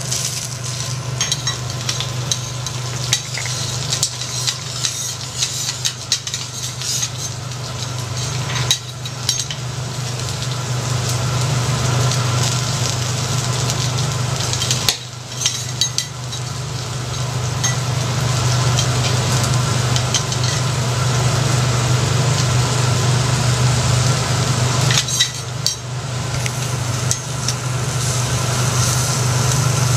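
Kuruma prawns sizzling on a hot steel teppanyaki griddle, with frequent clicks and scrapes of a metal spatula and knife against the plate. A steady low hum runs underneath.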